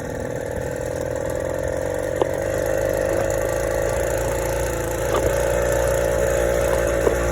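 Motorized bicycle's ported engine, with high-compression head and speed carburetor, running under way as the bike rides along; it gets louder over the first few seconds and then holds steady. It is built to run quiet while still pulling hard.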